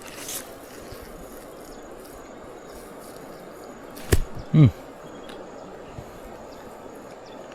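Steady rush of river water, with a sharp click about four seconds in followed at once by a short falling tone.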